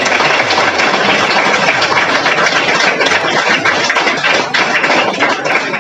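Audience of children applauding: dense, steady clapping from many hands.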